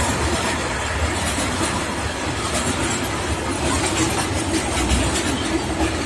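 Container freight train's flat wagons rolling past at close range: a steady, even noise of wheels running on the rails, with faint clicks mixed in.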